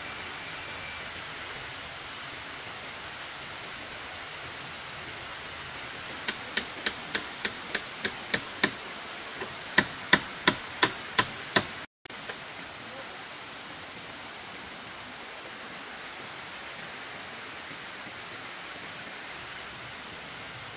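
About fifteen sharp knocks, evenly spaced at roughly three a second, in two runs with a short gap between them; the second run is louder. A steady hiss lies under them, and the sound cuts out briefly just after the last knock.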